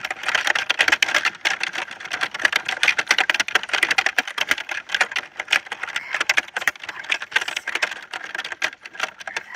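Fast typing on a keyboard: a steady stream of rapid key clicks that keeps going without pause.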